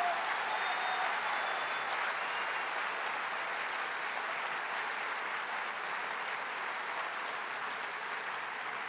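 Large audience applauding steadily, the clapping slowly fading.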